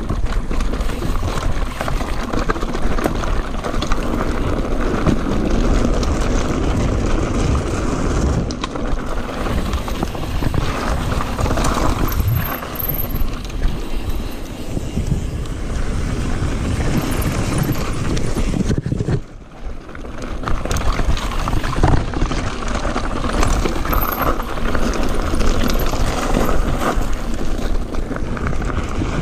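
Mountain bike riding over dirt trail and pavement, heard from a camera mounted on it: steady tyre noise and rattling of the bike, mixed with wind buffeting the microphone. It drops off briefly about two-thirds of the way through.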